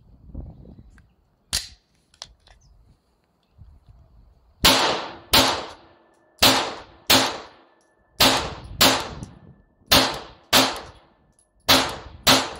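Glock 17 Gen 5 pistol, converted to .380 ACP with a conversion barrel, fired ten times in quick pairs: two shots about two thirds of a second apart, then a pause of about a second before the next pair, each shot trailing off in a short echo. A single sharp click comes before the shooting starts.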